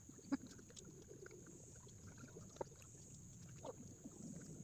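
Faint chewing and small mouth clicks of a person eating soft pandan bread, over a steady faint high hiss.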